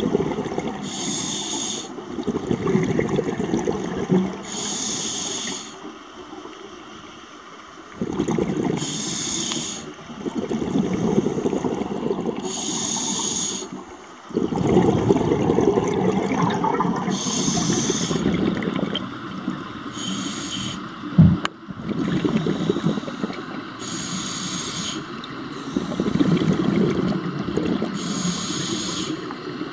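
Scuba diver breathing through a regulator underwater: a short hiss on each inhale, then a rumbling burst of exhaled bubbles, repeating about every four seconds. A single sharp knock about two-thirds of the way through.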